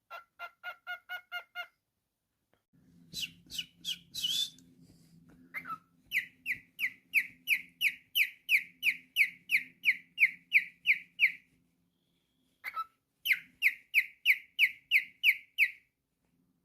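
Cockatiel whistling: a quick run of short notes, a few rougher calls, then two long runs of short, falling chirps, about three a second.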